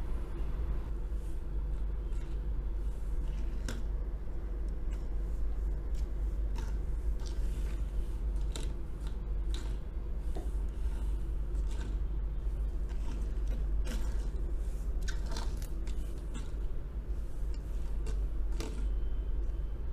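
Light clicks and scrapes from a small die-cast metal toy truck being handled and rolled on a tabletop, over a steady low hum.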